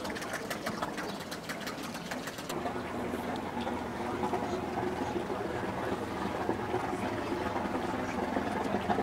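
A small outboard motor ticking over with rapid, even clicks. About two and a half seconds in, it gives way to the steady low hum of a motor cruiser's engine idling close by, with faint voices.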